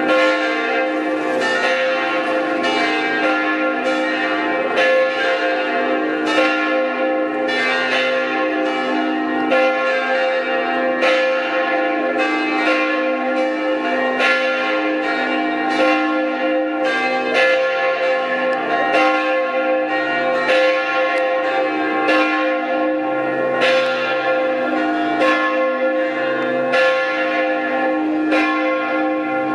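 Church bells ringing continuously, with strikes coming about once a second and their long ringing tones overlapping into an unbroken peal.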